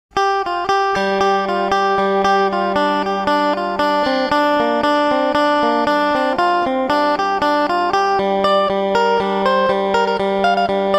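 Background music: fast plucked guitar notes over a steady low drone, starting abruptly.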